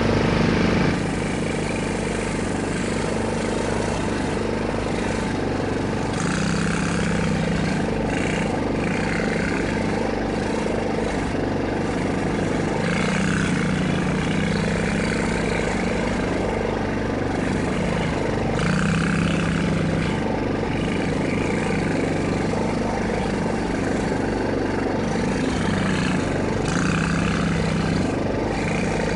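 A 110 cc ATV engine running as the quad circles in the mud, its note rising and falling in level every several seconds as the throttle opens and eases. The loudest moment is in the first second.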